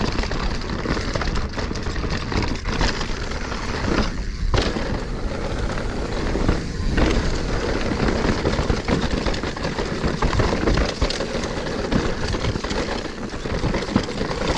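Specialized Stumpjumper Evo alloy mountain bike with a Fox 38 fork ridden down dusty, rooty singletrack: tyres rolling and crunching over dirt and roots under a steady rush of noise, with constant rattling and knocking from the bike over the bumps.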